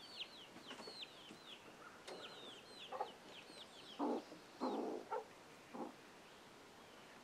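Young chicks peeping in quick, high, falling chirps, with a hen giving several louder, lower clucks about four to six seconds in.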